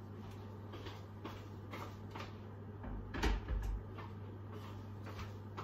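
Footsteps across a kitchen floor, about two a second, with light knocks of things being handled at the counter and a heavier low thud about three seconds in. A low steady hum underneath.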